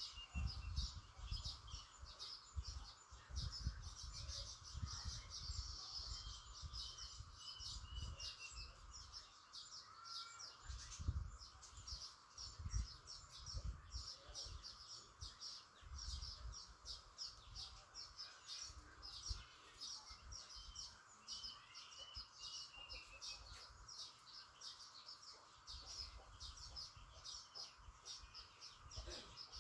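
Birds chirping rapidly and continuously, a dense run of short high chirps, with a steady background hiss and scattered low thumps on the microphone.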